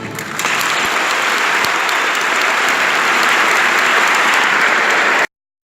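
Audience applauding after an orchestra's final chord has died away; the clapping breaks out within the first half second and is cut off abruptly about five seconds in.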